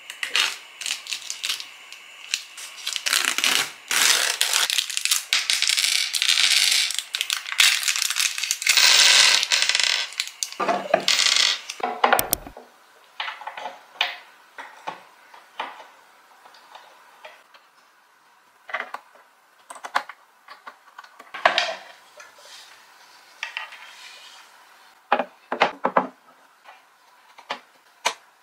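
Plastic packaging crinkling and rustling as the parts of a flat-pack desk riser and a bag of metal screws are unwrapped. About twelve seconds in it stops abruptly, and sparse small clicks and taps follow as the metal screws are handled and fitted into the white riser panels.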